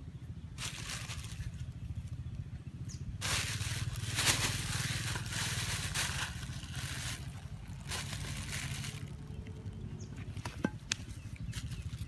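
Thin plastic bag crinkling and rustling as it is handled, in several stretches, loudest from about three to seven seconds in, over a steady low hum.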